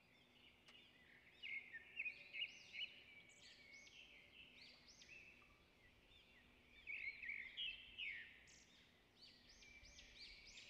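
Faint chorus of small birds chirping: many short, high calls overlapping, busiest in clusters about two seconds in and again around seven to eight seconds.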